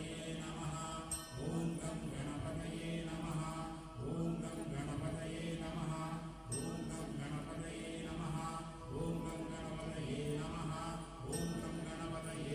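Hindu devotional mantra chanting with musical accompaniment, the chant phrases repeating about every two and a half seconds over a steady held tone, as used to recite the names during a kumkuma archana.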